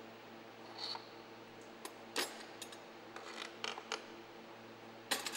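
Scattered clicks and clinks of a metal bearing installation press being handled and taken off a bicycle bottom bracket shell after pressing in a BB30 bearing, the sharpest about two seconds in and near the end, over a faint steady hum.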